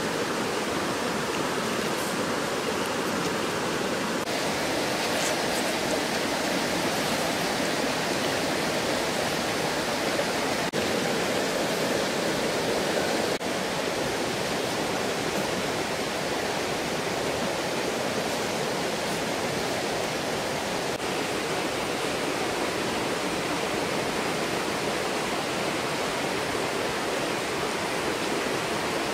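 Steady rushing of running water, a stream flowing over rocks.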